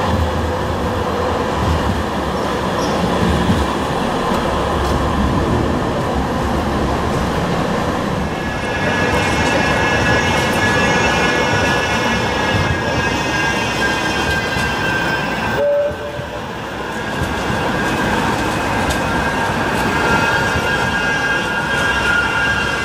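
Bombardier M5000 light-rail trams running past on street track over general street noise. From about a third of the way in, a high, steady whine of several stacked tones comes from the moving tram. It breaks off briefly about two-thirds through, then returns, sliding slightly lower near the end.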